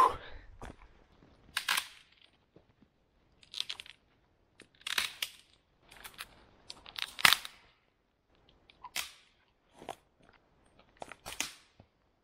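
Dead conifer branches cracking and snapping as they are broken off by hand, a sharp snap every second or two, the loudest about seven seconds in.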